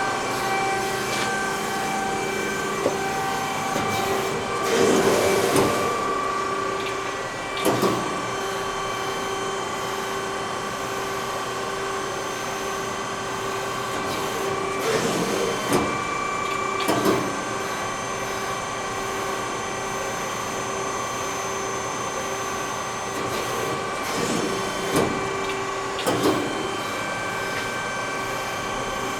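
Amada 138-ton CNC hydraulic press brake running, its hydraulic pump giving a steady hum with a few fixed tones. Three times, about ten seconds apart, short surges of noise and clicks break in as the machine cycles through its programmed moves.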